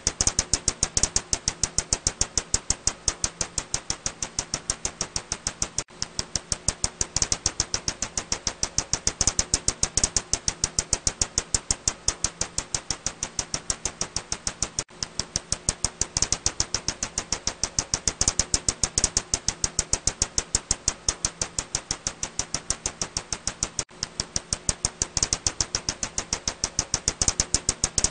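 Ussuri bat echolocation calls rendered audible: a steady train of sharp clicks, about four to five a second, over a faint low hum, breaking off briefly about every nine seconds.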